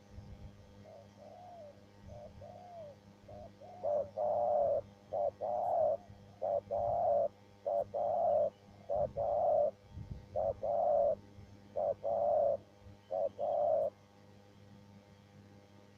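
Spotted dove cooing: soft, faint coos at first, then from about four seconds in a run of louder repeated coo phrases that stop a couple of seconds before the end.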